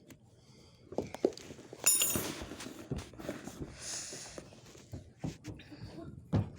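Handling noises: a few scattered knocks and two short rustles of fabric or a bag being moved about.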